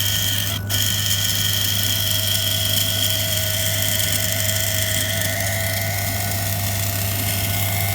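Condensate water pump of a Beko DPU 8360 X tumble dryer running with a steady high-pitched whine over a low hum. The high whine fades about five seconds in. The sound is the sign of a nearly jammed pump that needs replacing.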